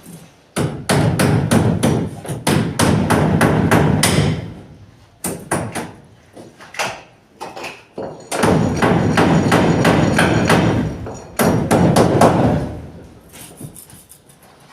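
Hammering nails into plywood ceiling boards: two long runs of fast, repeated blows, about four a second, with a few single knocks in the pause between them.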